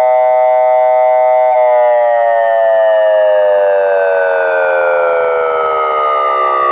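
Thunderbolt 1003 siren tone played loudly through the speakers of an OmniAlert 1004 electronic outdoor warning siren: a steady chord of several notes that, about a second and a half in, starts sliding steadily down in pitch as the tone winds down.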